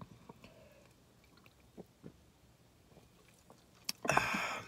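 A person drinking from a can of soda, with a couple of faint swallows, then a short breathy exhale near the end.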